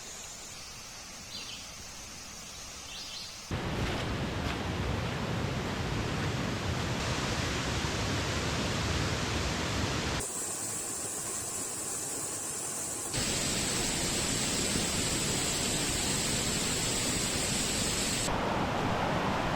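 Soft woodland ambience with a steady high hiss and two brief chirps, then, about three and a half seconds in, a sudden cut to the loud, steady rush of a mountain creek, whose level jumps at later cuts.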